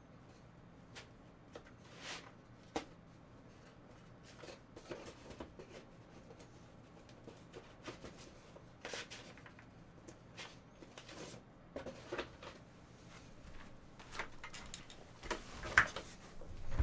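Trading cards being handled and sorted: scattered light clicks, taps and rustles, busier near the end, with one sharper click the loudest.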